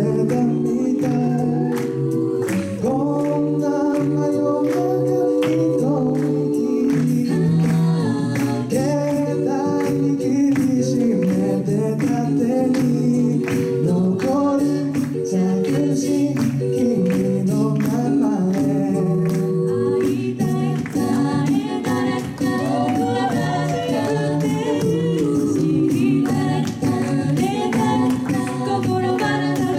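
Six-voice mixed a cappella group singing an upbeat pop song live through microphones, sustained chords in several parts, with vocal percussion keeping a steady beat.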